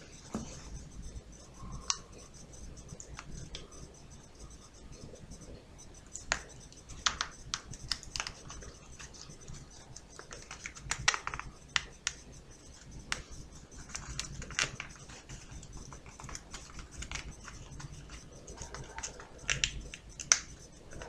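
Paper kaleidocycle being turned through its rotation by hand: irregular paper rustles and sharp little clicks as the folded card segments flex and snap past each other.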